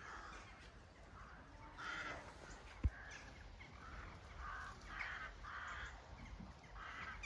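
A flock of crows cawing overhead, fairly faint: short harsh calls repeating every half second to a second, overlapping from several birds. A single low thump about three seconds in.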